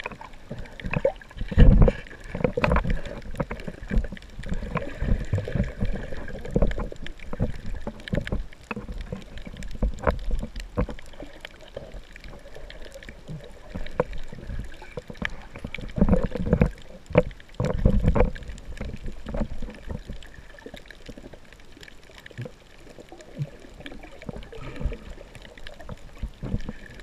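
Muffled underwater sloshing and rumbling, picked up by a camera held underwater by a swimmer in fins, with irregular low thuds. The thuds come in louder clusters about two seconds in and again around sixteen to eighteen seconds in.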